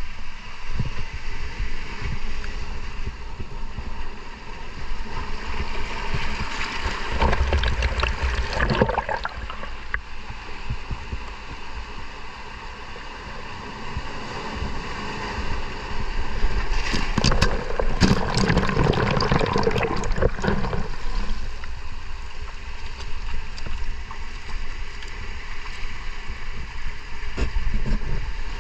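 Water sloshing and gurgling around the microphone, with two louder stretches of splashing and bubbling: one about seven to nine seconds in, another from about seventeen to twenty-one seconds.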